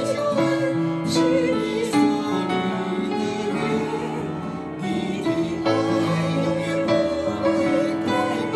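Music with long held notes and a wavering melody line that could be a singing voice.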